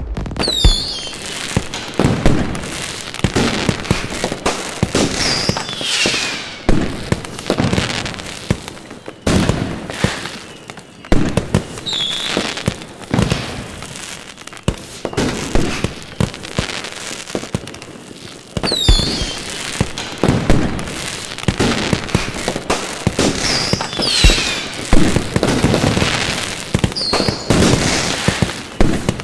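Aerial fireworks display: repeated sharp bangs and crackling bursts with deeper booms every few seconds, and short falling whistles several times.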